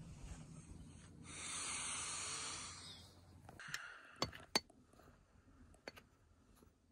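A metal spoon clinking against a glass coffee jar and an aluminium moka pot as ground coffee is scooped into the filter basket: a few sharp clinks about four seconds in, then a couple of fainter ticks. Before that comes a steady rushing noise lasting about two seconds.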